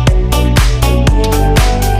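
Background electronic dance music with a steady, fast beat.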